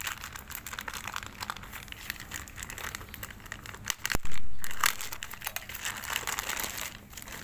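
Clear plastic wrapping crinkling and crackling as hands pull it open and pick at its tape. About four seconds in there is a sharp click, followed by a brief, louder rustle of the plastic.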